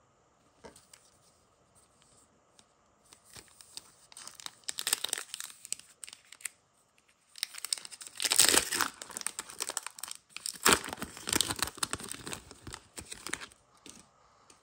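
A foil Marvel Metal Universe Avengers trading-card pack being torn open by hand, the wrapper crinkling and ripping in several bursts with short pauses, loudest in the second half.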